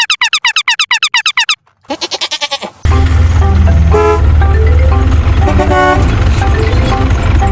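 A rapid run of repeated warbling chirp sound effects, a short break, then from about three seconds in loud background music with a heavy bass and a simple melody.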